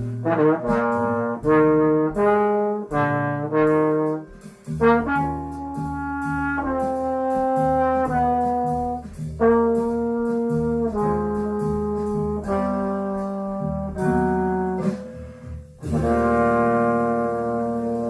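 Slide trombone playing a slow jazz ballad melody in phrases of moving and held notes, with short breaths between phrases. Near the end it settles into a long held note.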